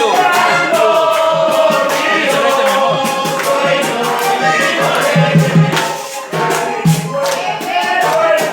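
Music with singing over a steady shaker rhythm.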